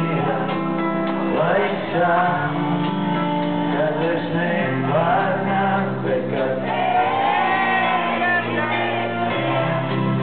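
Live rock band performing: a male lead vocalist singing over electric guitar, bass guitar, keyboard and drums.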